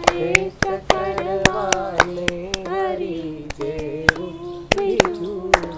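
Devotional song (bhajan) sung in drawn-out held notes, with hand claps keeping time at about three to four claps a second.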